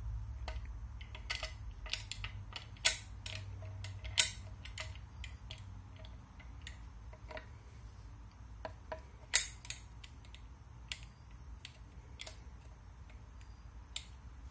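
Scattered light clicks and knocks of a wooden fore end against the steel barrels and fittings of a Savage/Fox Model B double-barrel shotgun while it is being fitted into place. Three sharper clicks stand out, at about three, four and nine seconds in.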